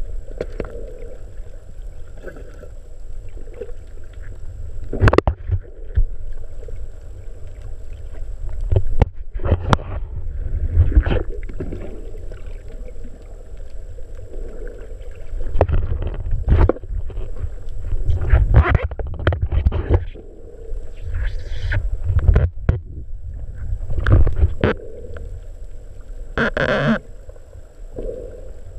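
Muffled underwater noise through a camera housing: a low rumble of moving water with irregular knocks and clicks, and a longer noisy burst near the end.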